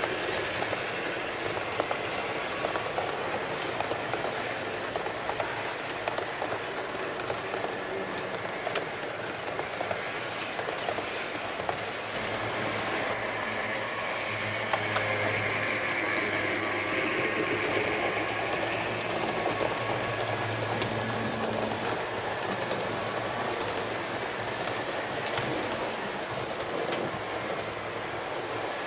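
HO-scale Roco DB class 110 model electric locomotive running with a train of coaches: a steady small-motor whine, with the wheels clicking over rail joints and points.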